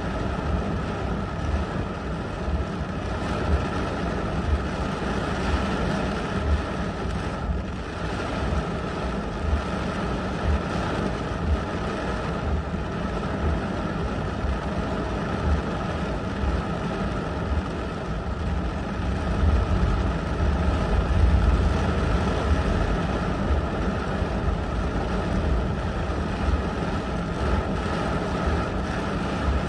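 Heavy rain pouring on a car's windshield and roof while strong wind gusts buff the car and the microphone, heard from inside the cabin. The gusts grow louder about twenty seconds in.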